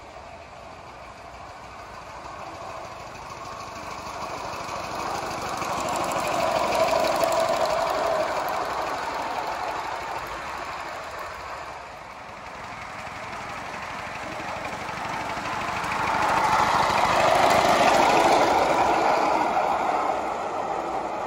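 Small 3.5-inch gauge live-steam 4-6-0 ten-wheeler locomotive running along the track under steam, its exhaust chuffing. It grows louder and fades away twice as it passes by.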